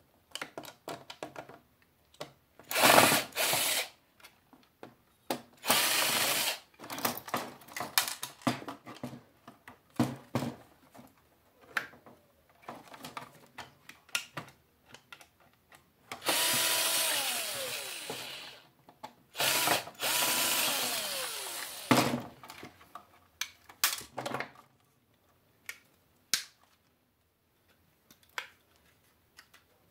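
Cordless screw gun backing screws out of a TV chassis in several bursts of one to three seconds, with clicks and rattles of parts being handled in between. In two of the longer bursts the motor's whine falls in pitch near the end.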